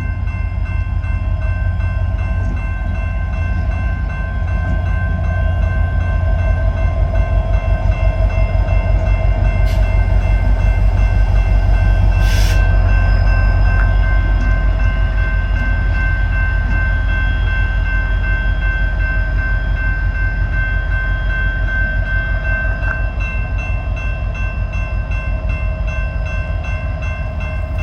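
Diesel engines of two EMD SD70MAC locomotives running, a steady low throb with several whining tones over it. They grow louder toward the middle and then ease off. A short sharp burst of noise comes about twelve seconds in.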